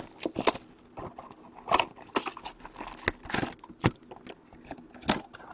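Plastic and foil packaging of a hockey card blaster box being torn open and crinkled by hand, an irregular run of crackles and rips with a few sharper snaps.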